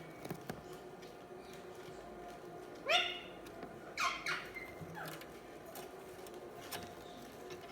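Budgerigars chirping: two short, sharp rising chirps about a second apart near the middle, then a fainter one, with scattered light clicks between.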